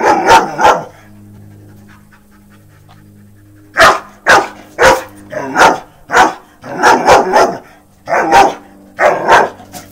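Young German Shepherd barking at a pink cobweb duster: two sharp barks, a pause of about three seconds, then a quick run of about ten more barks.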